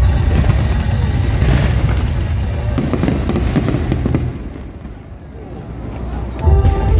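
Fireworks going off in a dense run of bangs and crackles over loud music, dying away about four seconds in; the music comes back loud near the end.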